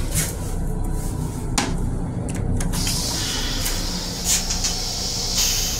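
Toilet seat in an M7 railcar restroom lifted, with a few sharp knocks and clatters, then a hissing rush from about three seconds in as the stainless-steel toilet starts to flush. A steady low rumble runs underneath.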